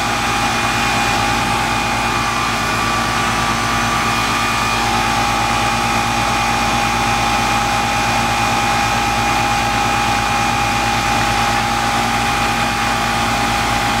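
Air-conditioning condensing unit running steadily, a constant mechanical hum with a steady high whine over it.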